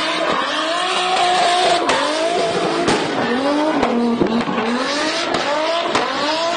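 Single-turbo Toyota 2JZ straight-six in a BMW E36 drift car, revving up and falling back repeatedly under throttle while drifting. Sharp cracks from the anti-lag system come in between, over tyre squeal.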